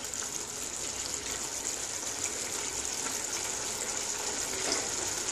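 Yogurt-based cauliflower and pea curry bubbling and sizzling steadily in a kadai over a turned-up gas flame, with a wooden spatula stirring through it as the gravy cooks down.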